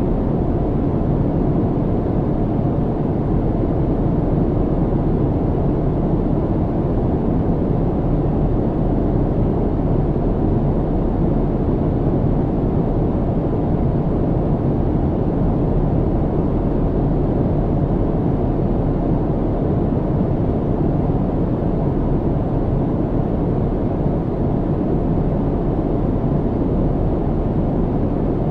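Airliner cabin noise in flight: a steady, deep rumble and rush of engine and airflow noise, unchanging throughout.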